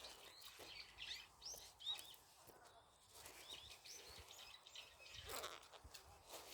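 Small birds chirping faintly: short, scattered high notes, some rising or falling quickly, the loudest about two seconds in.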